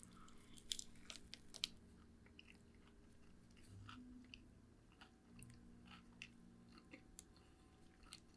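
Faint sounds of a person biting into and chewing a cheeseburger, with scattered small mouth clicks.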